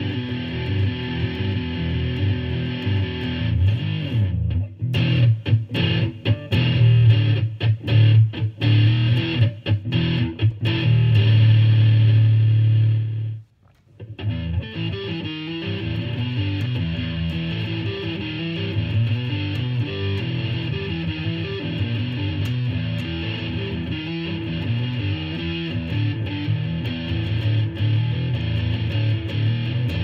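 Electric guitar playing chords and notes, with a stretch of short choppy stops and starts, then a held note that cuts off suddenly about halfway through; after a brief silence the playing resumes steadily.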